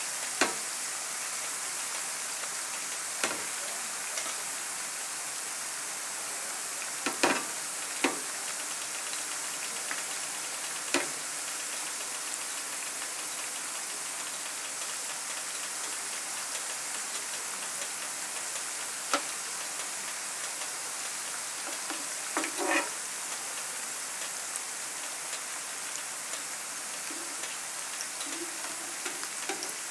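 Plantain slices sizzling steadily in hot frying oil in a pan. Sharp clicks of the metal spatula against the pan come now and then as the slices are stirred and turned, a pair of them about 7 to 8 seconds in and a cluster near 23 seconds.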